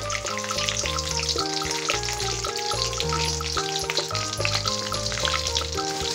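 Dried red chillies sizzling and crackling in hot oil in a large aluminium kadai, a steady crackle of fine pops, heard under background music with a pulsing bass line.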